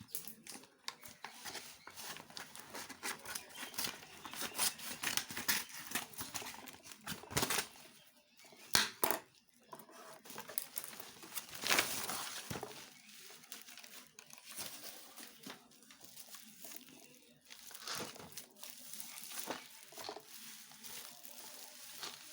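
Packaging being crinkled and torn open during unboxing, with irregular rustling and clicks throughout and a few sharper snaps around the middle.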